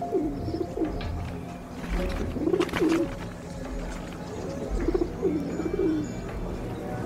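Pigeons cooing in repeated low, rolling phrases over soft background music.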